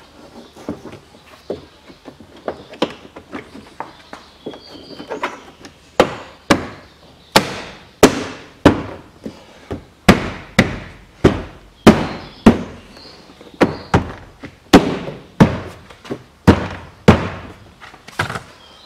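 Hand blows on a Range Rover Evoque's plastic front door card, knocking its retaining clips home into the door: light taps at first, then a run of sharp thuds, roughly one or two a second, from about six seconds in.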